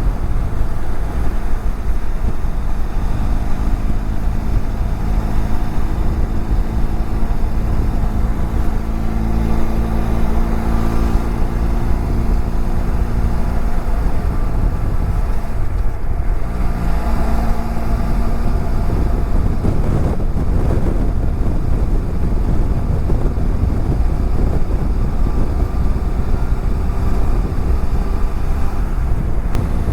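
BMW F700GS motorcycle's parallel-twin engine running steadily at riding speed under a heavy rush of wind noise.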